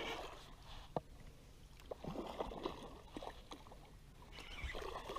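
Water sloshing and gurgling in short spells, with a single sharp click about a second in.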